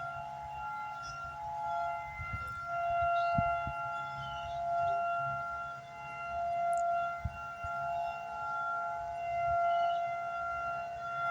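Outdoor tornado warning siren sounding a steady tone during its weekly test, holding pitch while its loudness swells and fades every couple of seconds.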